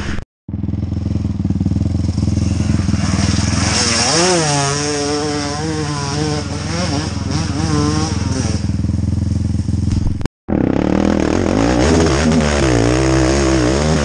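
ATV engine running steadily, its pitch swinging up and down as the throttle is worked, in two spells of revving. The sound cuts out completely for a split second twice, about a quarter second in and about ten seconds in.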